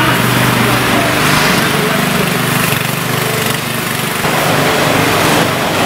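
Small engine running steadily, driving the pump of a disinfectant sprayer that feeds a long hose, with a hiss over it.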